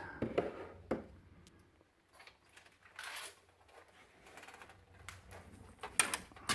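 Handling clicks and knocks of a CD-ROM optical drive being fitted into the front drive bay of a PC case, with a short scraping rustle about three seconds in and a sharp click near the end.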